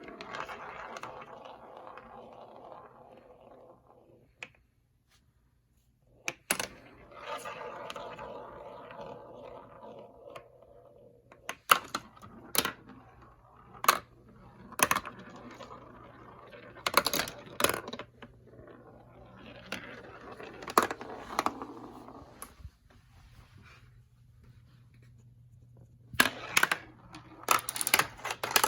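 Marbles rolling down a plastic marble-run track: stretches of rattling roll broken by many sharp clacks as the marbles drop and strike the track pieces, with a quick run of clacks near the end.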